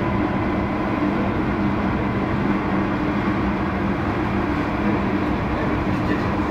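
Bucyrus 495HR electric rope shovel running: a steady machine hum with a few held low tones and a fainter higher tone over a dense rumble.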